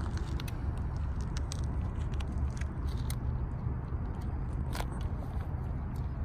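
Steady low rumble of wind buffeting the microphone, with scattered small clicks and rustles and one sharper click about five seconds in.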